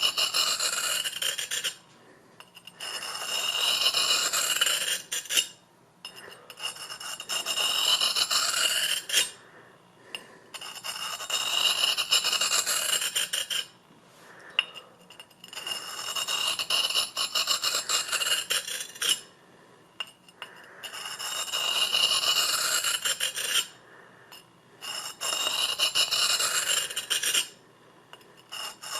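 Railroad-spike knife blade being sharpened on a large sharpening stone: about seven long rasping strokes of steel across the stone, each two to four seconds with short pauses between, and a faint ring from the blade.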